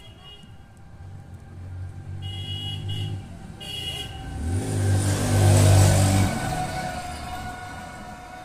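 A motor vehicle passing close by: its engine hum swells to a peak about five to six seconds in, then fades. Two short high-pitched toots sound a couple of seconds before the peak.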